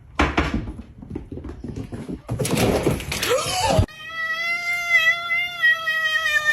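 Scuffling noise with a brief cry. About four seconds in it cuts to a cat's long, drawn-out meow, held with a slight waver.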